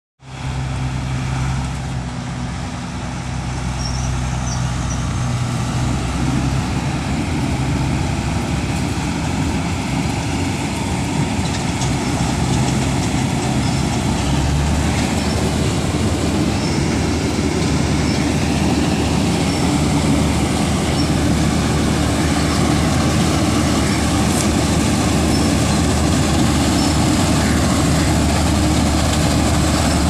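Preet 987 combine harvester running under load while cutting and threshing rice, a steady diesel-engine and machinery drone that grows slowly louder as it comes closer. Its low drone shifts to a deeper pitch about halfway through.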